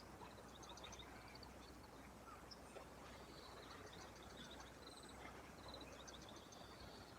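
Faint outdoor quiet with birds chirping: many short, high chirps and twitters scattered throughout.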